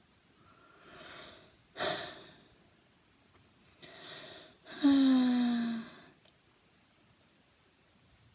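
A woman breathing and sighing: a soft breath, a sharp intake of breath about two seconds in, then a long voiced sigh falling in pitch about five seconds in. It is a sigh of boredom, her 'girlish sigh'.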